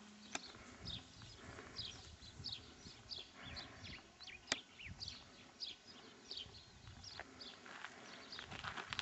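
Faint outdoor birdsong: a steady string of short, high, falling chirps, with a few sharp clicks over it.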